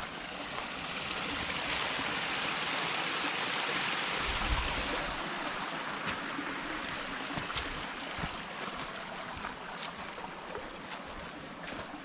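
Small shallow forest creek trickling and babbling, growing louder about two seconds in and easing off toward the end. A few light crackles of footsteps on dry leaf litter.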